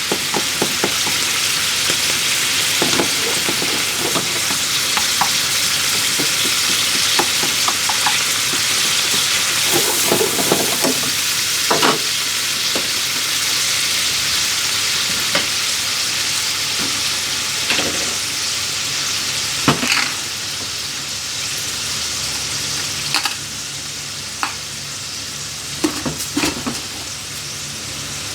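Food sizzling in hot oil in a frying pan while it is stirred, a utensil clicking and scraping against the pan now and then. The sizzle eases a little about two-thirds of the way through.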